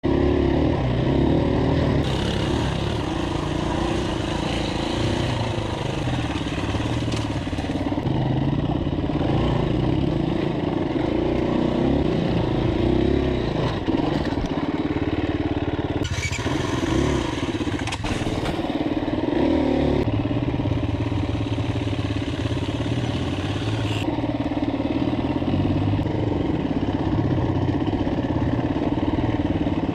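Off-road dirt bike engine heard from the rider's own bike, running on and off the throttle as it picks its way along a rough trail, the pitch and level shifting every few seconds.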